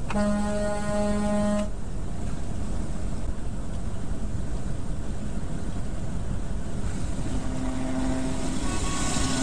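A vehicle horn sounds one steady blast of about a second and a half, over the steady road and cab noise of a truck at highway speed. A fainter horn-like tone sounds again about seven seconds later.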